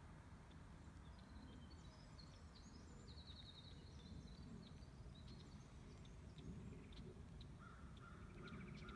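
Near silence: faint outdoor ambience with scattered faint bird chirps and a short trill.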